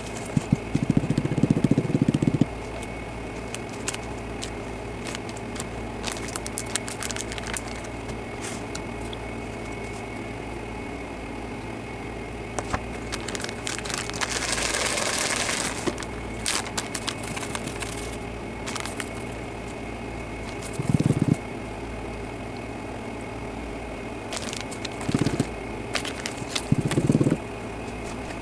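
Kitchen handling sounds while coating raw chicken: scattered clicks and knocks and a plastic bag crinkling for a couple of seconds around the middle. Several short low rumbling bursts come near the start and near the end, over a steady hum.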